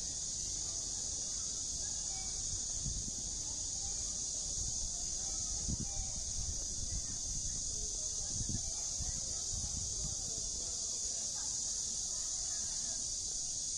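A steady, high-pitched chorus of insects in the trees. Faint voices of passers-by sit beneath it, along with a few low thumps, around three, six and eight and a half seconds in.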